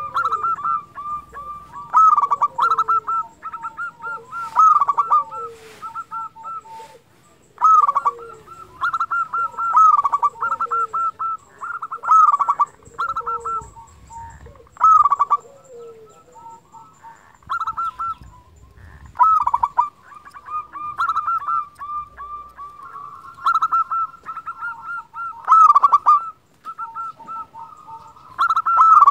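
Zebra dove (perkutut) cooing: phrases of rapid short notes, repeated every second or two with brief pauses between them.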